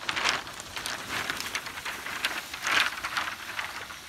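A long bundle of cut malingo bamboo canes dragged over leaf litter: the canes rattle and scrape while the leaves crackle, in two louder surges.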